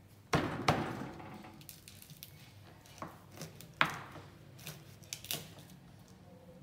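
Broad kitchen knife chopping through a corn cob, each cut ending in a sharp knock of the blade on a wooden cutting board. Two knocks come close together near the start, then several more are spaced out after.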